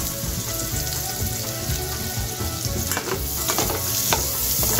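Chopped red onion and garlic sizzling in butter and oil in a frying pan, with a steady hiss, while a metal utensil stirs them. The utensil scrapes and gives several sharp taps against the pan in the second half.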